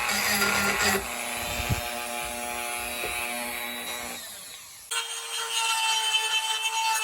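A power tool running as it works wood, in short clips that cut abruptly about a second in and again near five seconds in. The later clip is a steady running sound.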